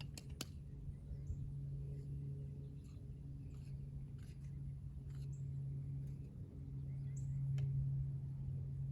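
A steady low hum with scattered faint clicks, and a few short bird chirps, one about a second in and more near the end.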